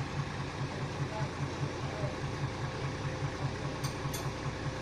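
Bus diesel engine idling, a steady low throb pulsing several times a second. Two short sharp clicks about four seconds in.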